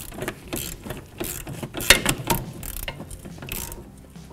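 Hand ratchet clicking in short, uneven strokes as it backs the nut off a front sway bar end link, with locking pliers holding the link so the stud can't spin. The loudest click comes about two seconds in.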